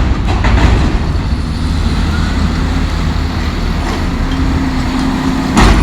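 Cat 329D excavator's diesel engine running steadily under hydraulic load while its shear works scrap metal, with a loud sudden metallic bang right at the start and another near the end.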